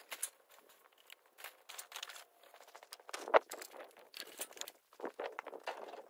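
A large black plastic trash bag rustling and crinkling as construction debris is handled, with footsteps on dirt and one sharp knock about three and a half seconds in.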